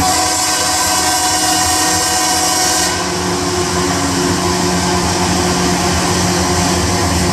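A Loram rail maintenance train passing close by. A horn sounds for about the first three seconds over a hiss, then the train's rumble continues with its engine's steady drone.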